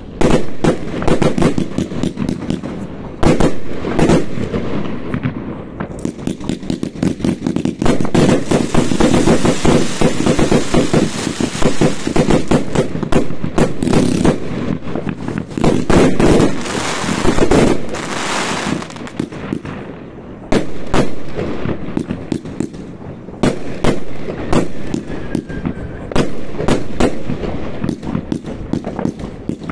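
New Year's fireworks going off thick and fast: many sharp overlapping bangs and rapid crackling strings, with a dense stretch of continuous crackling through the middle. A faint whistle slides down about five-sixths of the way in.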